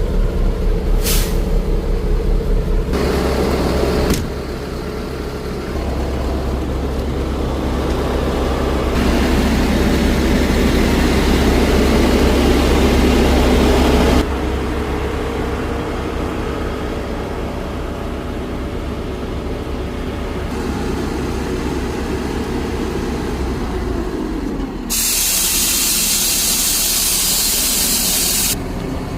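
Street sweeper running with its engine humming steadily under rushing mechanical noise that swells in the middle. Near the end comes a loud hiss of air lasting about three and a half seconds.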